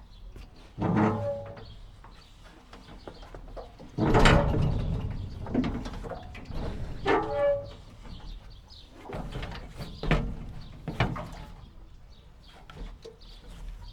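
A jetty creaking and squeaking under load, in about five drawn-out, pitched squeaks spread over the stretch. The loudest comes about four seconds in, with a sudden burst of water splashing. Flowing water is under it throughout.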